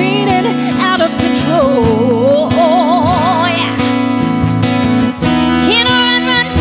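A woman singing a slow ballad into a microphone over acoustic guitar accompaniment, holding long notes with wide vibrato; a brief break about five seconds in before the next held note.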